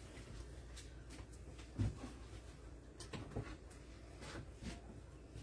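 Scattered faint clicks and knocks of objects being handled in a small room, with a duller thump about two seconds in.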